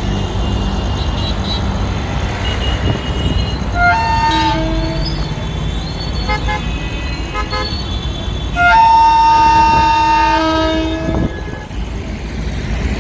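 WAG-9 electric locomotive's horn giving a peculiar, piglet-like honk: two short toots about four seconds in, a few quick blips a couple of seconds later, then a long held blast of about two seconds. A steady low rumble of the moving freight train runs beneath.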